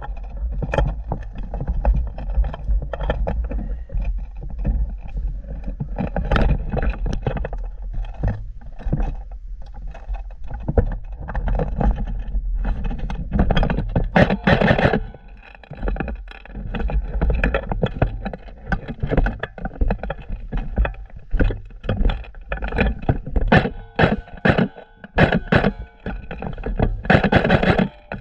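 Irregular knocks, scrapes and rustling close to the microphone over a steady low rumble, the handling and movement noise of an airsoft player moving with a body-worn camera.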